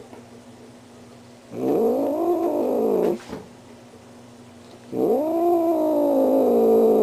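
Tortoiseshell cat giving two long, drawn-out growling yowls, each rising and then falling in pitch: the first about a second and a half in, the second starting near the end and still going. It is an agitated cat's warning to back off.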